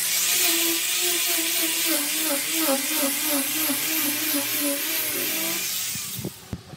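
Small corded handheld power tool running against a wooden panel, its motor whine wavering up and down in pitch as it is pressed and moved over the wood, under a loud hiss. It stops shortly before the end, followed by a few light knocks.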